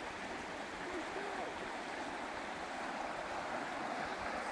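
Fast-flowing river rushing over shallow riffles, a steady even rush of water.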